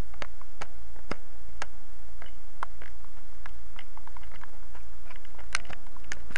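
Steady low hum with scattered small clicks and ticks from fingers handling the phone and camera.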